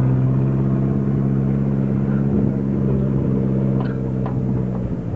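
A motor vehicle's engine running steadily at one low, even pitch, with a few light clicks about four seconds in; the engine note drops away right at the end.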